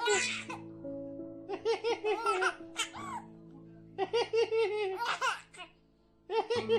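A baby laughing in several short bursts of giggles, over background music with long held notes. The music and laughter drop away briefly near the end before starting again.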